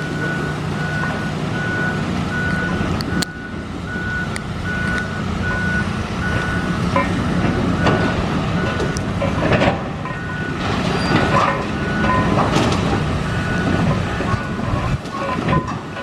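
Backup alarm of heavy demolition machinery beeping steadily over a diesel engine's running rumble, with clattering and crashing of demolition debris in the middle.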